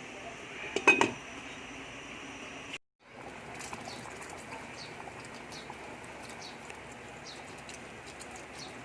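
A metal utensil clinks sharply against the cooking pot a couple of times about a second in, then a steady low hiss of the pasta pot boiling, with faint short chirps repeating every half second or so.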